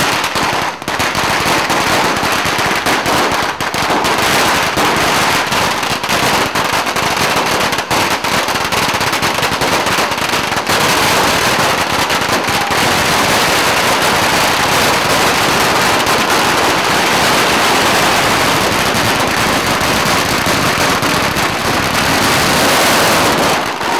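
Long strings of firecrackers (pagara) exploding in a continuous, rapid crackle of sharp bangs with no letup, cutting off suddenly near the end.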